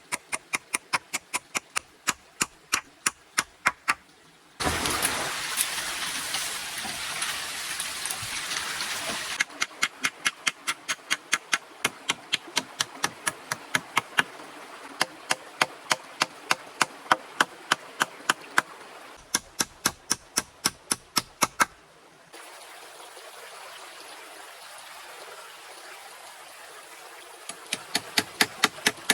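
Rapid, evenly spaced knocks, about three or four a second, in long runs. Twice they give way: first to a few seconds of loud rushing, water-like noise, later to a softer steady hiss.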